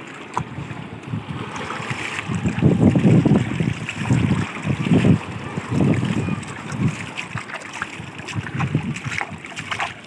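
Shallow seawater washing and lapping over a rocky, shell-covered reef shelf, with wind gusting on the microphone in low rumbling surges every second or so.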